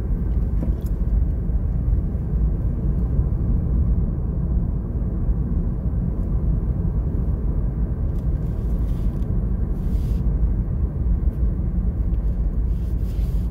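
Steady low rumble of a car driving on the road, heard from inside the cabin: engine and tyre noise.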